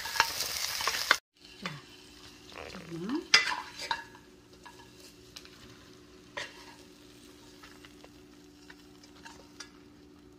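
Chicken pieces sizzling in a hot wok as they are stirred with a wooden spatula, which breaks off suddenly about a second in. After it, over a steady low hum, come a few knocks and light clinks as the fried chicken is scraped from the wok onto a plate.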